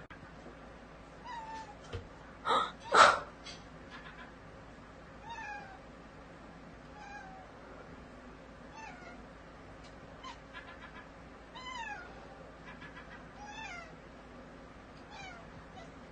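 A cat meowing over and over, short calls that fall in pitch, one every second or two. Two louder calls come about two and a half to three seconds in.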